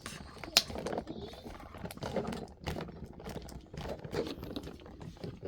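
Plastic screen bezel of a Dell Chromebook 3100 being pressed back into place, its clips snapping in as a series of sharp, irregular clicks, the loudest about half a second in.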